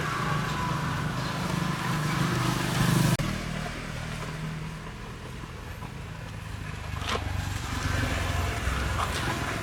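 A motor hums steadily under a loud hiss. The hiss and most of the hum cut off suddenly about three seconds in, leaving a quieter hum with a couple of sharp clicks later on.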